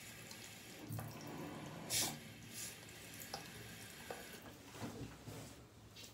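Tap running into a bathroom sink as a face roller is washed under it, with a few light knocks and clinks, the loudest about two seconds in.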